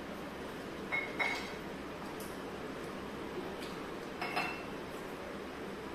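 Drinking glasses set down on a stone tabletop: two quick clinks about a second in and another a little after four seconds, each with a short ring, over a steady low hum.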